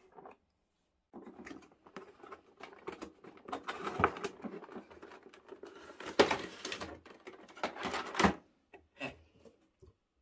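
Cardboard box and clear plastic blister tray being handled: rustling and scraping as the tray slides out of the cardboard box, with several sharp knocks and clicks of the plastic and card. It starts about a second in and ends with a few light clicks.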